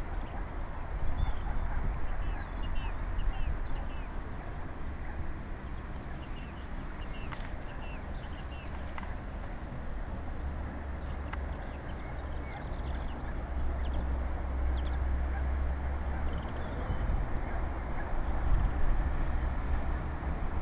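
River Trent's flood tide washing along the bank in the wake of the Aegir tidal bore, under a steady rumble of wind on the microphone. Many faint, short bird calls are scattered throughout.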